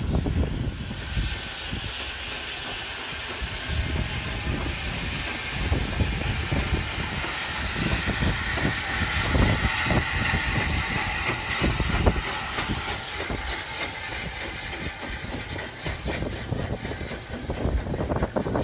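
Steam train passing close by, with LNWR Coal Tank No. 1054 going past in the middle: a loud hiss of escaping steam over the chuff of the exhaust and the knock of wheels on the rails.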